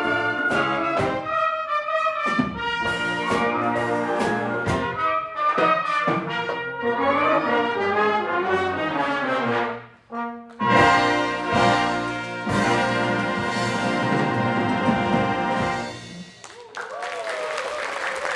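A wind orchestra plays a brass-heavy passage with trumpets and trombones prominent. About ten seconds in there is a short break, then the band sounds a loud sustained final chord that cuts off. Audience applause starts near the end.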